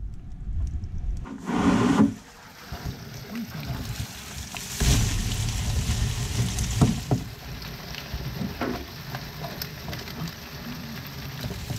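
Steady low rumble on a fishing boat's deck, with scattered clicks and knocks as mantis shrimp are handled in a plastic basket; a short louder burst about two seconds in.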